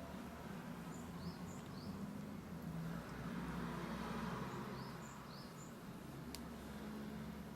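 A small bird calling twice, each time a quick pair of high, rising chirps, about four seconds apart, over a low steady hum. A soft rush of noise swells in the middle, and there is a single sharp tick near the end.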